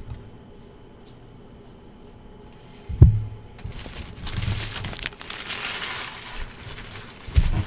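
A thump on the table about three seconds in, then foil trading-card pack wrappers crinkling and tearing as packs are handled and opened, with another thump near the end.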